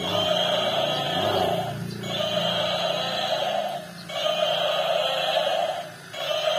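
Battery-operated gorilla toy playing its electronic sound effect through a small speaker: a harsh call of about two seconds that repeats over and over, with a short break between repeats.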